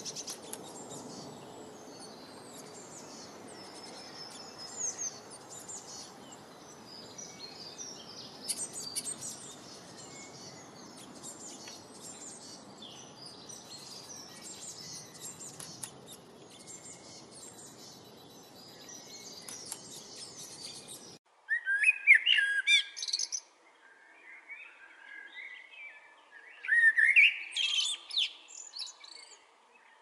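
Small garden songbirds twittering, many quick high chirps over a faint steady hiss. About 21 seconds in the sound cuts, and a male Eurasian blackbird sings two loud phrases of rising whistled notes, about four seconds apart.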